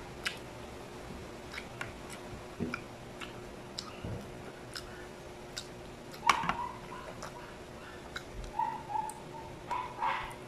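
Close-up eating sounds of field-frog adobo eaten by hand: scattered small clicks of chewing, lip smacks and fingers on the plate over a faint steady hum. From about two seconds before the end, a dog whimpers in short broken whines.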